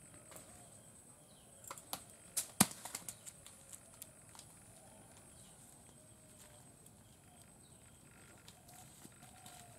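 A burst of sharp clicks and snaps about two to three seconds in, then a few scattered clicks, over faint wavering calls in the background.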